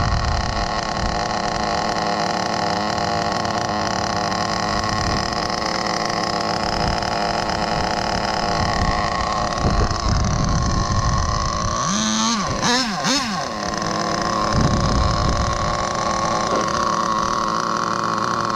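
Small .12 nitro engine of a Kyosho FW06 RC touring car running at a high idle just after its first start. About twelve seconds in, the throttle is blipped a few times, the pitch rising and falling quickly.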